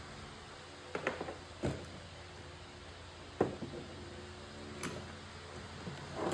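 Handling noise: a few short, light knocks and clicks, about a second in, again just after, then near three and a half and five seconds, over a low steady hum.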